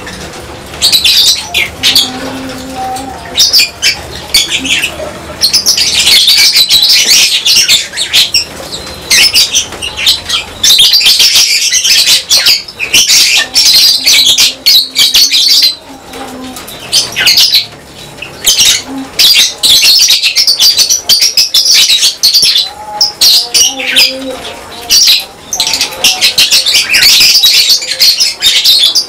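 A colony of lovebirds chirping shrilly, many calls overlapping in loud, near-continuous bursts, with a short lull about two-thirds of the way through.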